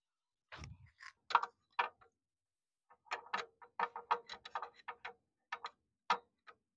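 Light metallic clicks and ticks of a wrench threading in and tightening the 17 mm engine-oil drain bolt on a Yamaha RX100's crankcase: a few scattered clicks at first, then a quicker irregular run of several a second from about three seconds in.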